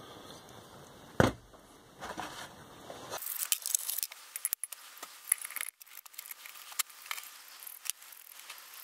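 Small metal parts being handled and fitted: a single knock about a second in, then a run of light metallic clinks, rattles and scrapes.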